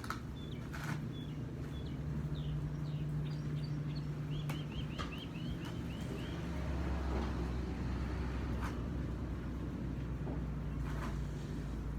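A steady low hum with a bird chirping over it, including a quick run of about ten chirps about four and a half seconds in, and a few sharp clicks.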